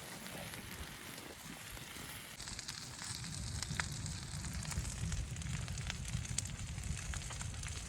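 Wood fire crackling, with scattered sharp pops over a steady low rumble that grows stronger about two and a half seconds in.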